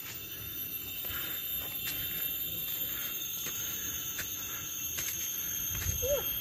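Forest insects droning steadily in several high, unbroken tones, with light crunching footsteps on the dry leafy dirt trail about once a second.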